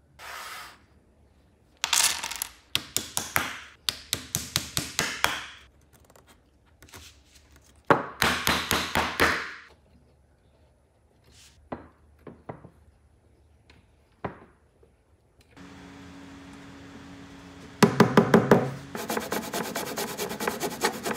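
Hand work on pine. There are runs of quick taps and knocks, a rasping stretch about eight seconds in, and scattered single clicks. A steady low hum follows, then fast back-and-forth strokes near the end.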